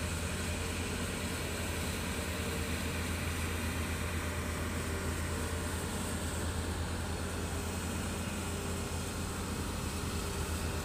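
Diesel engine of a crawler excavator running steadily: a constant low drone with a hiss over it.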